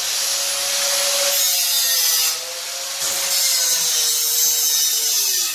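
Corded angle grinder with a cut-off wheel cutting through steel: a steady high motor whine over a harsh hiss, easing briefly a little past two seconds, then the motor pitch falls as it winds down near the end, with the cut finished.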